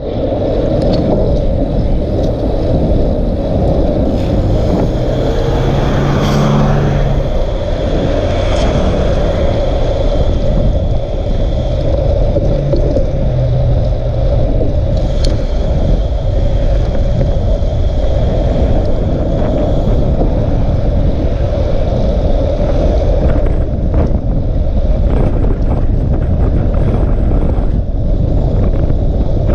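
Steady rumble of wind buffeting the microphone of a camera moving along a road, with road and tyre noise underneath and no clear engine note.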